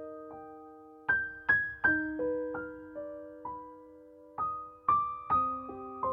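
Soft, slow piano background music: single notes and small clusters struck a few at a time and left to ring out.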